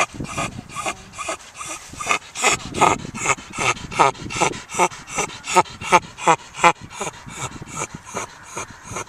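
A whippet honking over and over in a steady rhythm, about two and a half honks a second, each one dropping in pitch.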